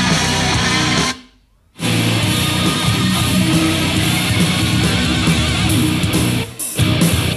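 Rock music with electric guitar playing through a portable Bluetooth speaker during an audio test. It cuts out for about half a second just after a second in, then resumes, with another short dip near the end.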